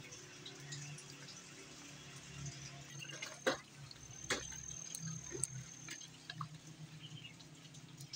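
Rain dripping and pattering on wet ground and leaves, with many small drop ticks and two sharper knocks less than a second apart about three and a half seconds in. A thin, high steady tone sounds briefly twice.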